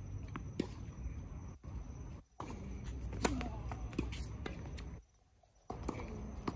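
Tennis ball being struck by rackets and bouncing on a hard court during a doubles point: a string of sharp pops, the loudest a little past three seconds in, over a low outdoor rumble. The sound cuts out briefly twice.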